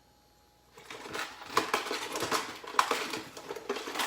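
Metal hand tools clinking and clattering as someone rummages through a tool bag, starting about a second in and stopping abruptly near the end.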